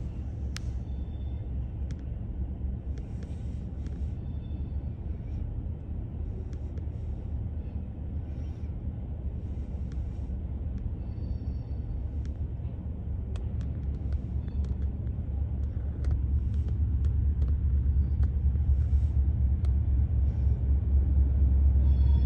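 Wheeling & Lake Erie train rumbling steadily on the track. The rumble grows louder about two-thirds of the way through, with scattered faint high clicks above it.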